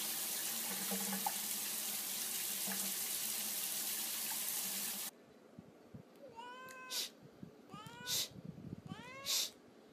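Running water spraying steadily onto a wet cat standing in a bathtub, cutting off abruptly about halfway through. It is followed by a series of short rising calls, about one a second, each with a sharp high click.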